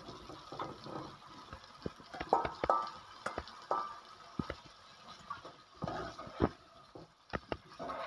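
Fried chicken pieces tipped from a metal bowl into a nonstick wok of capsicum and onion, then stirred in with a spatula: scattered knocks and scrapes against the pan over a faint sizzle.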